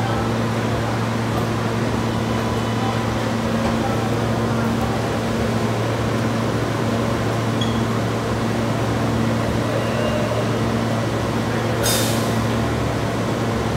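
Steady low hum of a stationary subway train's ventilation and air-conditioning equipment. A short hiss comes about twelve seconds in.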